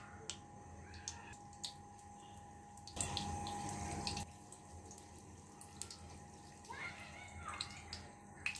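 Raw samosas frying in oil kept only moderately hot: faint bubbling and sizzling with scattered small pops. The sizzle grows louder for about a second around three seconds in.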